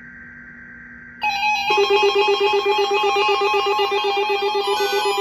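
Warbling burst of EAS SAME digital header data from NOAA Weather Radio, which cuts off about a second in. A much louder electronic alert tone takes over: a fast-trilling, buzzy ring with high overtones that signals the test alert, and near the end alternating higher and lower notes join it.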